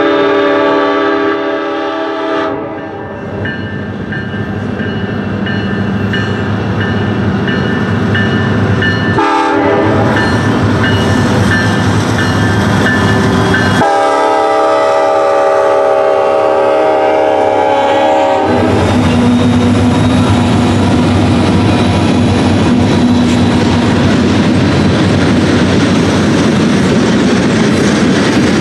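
Union Pacific freight locomotives sounding their air horn: a long blast at the start, a brief one about nine seconds in and another long one around fourteen to eighteen seconds. Then the train rolls past close by, with the steady rumble of the locomotives and the clickety-clack of wheels over the rail joints as the freight cars follow.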